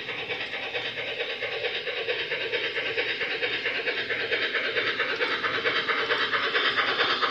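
LGB Class IVk Meyer G-scale model steam locomotive running along garden railway track, a rapid, even rhythmic beat over a hiss that grows steadily louder as it comes closer.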